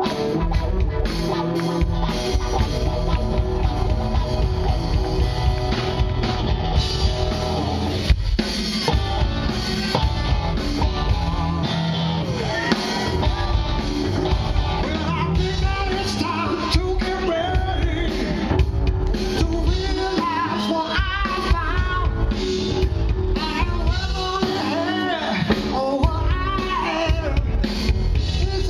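Live rock band playing: electric guitar, bass guitar and drum kit, with a male lead voice singing over them from about a third of the way in.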